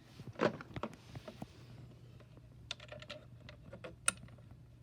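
Plugs and cords being handled and pushed into sockets: a scatter of light plastic clicks and rattles, bunched near the middle, with one sharper click about four seconds in.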